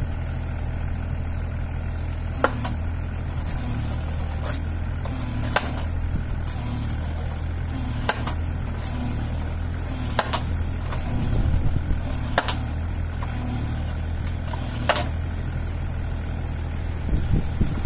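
Takeuchi TB216 mini digger's diesel engine running steadily while the homemade post driver's 55 kg weight drops onto a wooden fence post, a sharp bang roughly every two seconds with fainter knocks between, driving the post into the ground.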